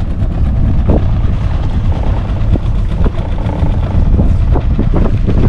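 Small boat underway: a steady low motor rumble mixed with wind buffeting the microphone, with scattered light knocks.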